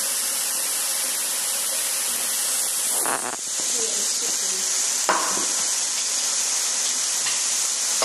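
Steady sizzling hiss of food cooking on a tabletop Korean barbecue grill, with a couple of brief knocks about three and five seconds in.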